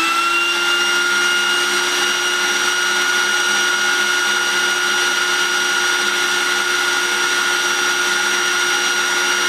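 Food processor motor running at a steady speed with a constant whine, blending a mayonnaise base while olive oil is slowly drizzled in to build the emulsion.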